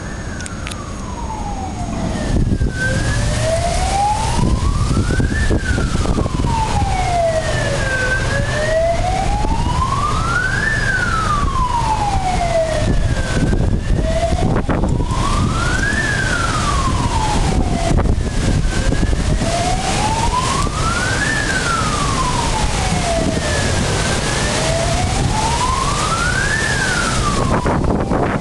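Fire engine siren wailing, its pitch rising and falling slowly about every five seconds, over a heavy low rumble; it grows louder about two and a half seconds in.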